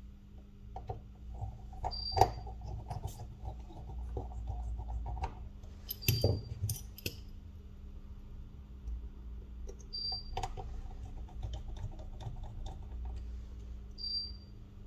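Small clicks, taps and scrapes of repair tools and plastic and metal parts being handled while a smartphone is taken apart, irregular and sharp, with a short high beep about every four seconds and a steady low hum underneath.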